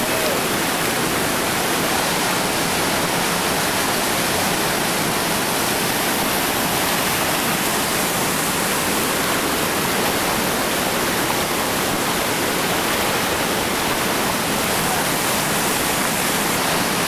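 Whitewater rapids rushing, a steady, loud, even noise of churning water that does not change.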